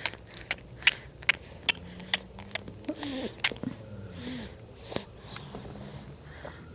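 Sleeping person's noisy, sniffly breathing, typical of snoring, with a string of sharp clicks about two or three a second through the first half. There are a couple of short breathy sounds and brief pitched vocal noises near the middle.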